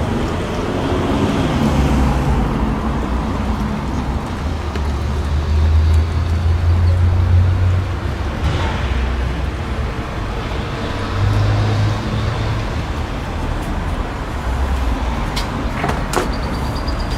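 Low, steady rumble of road traffic, with engine hum swelling twice as vehicles pass. A few sharp clicks near the end.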